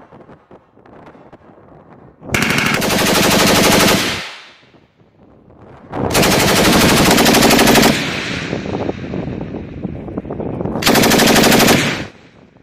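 M249 light machine gun firing three long bursts of automatic fire. The first two bursts last about two seconds each and the last about one second, with echo carrying on after the second.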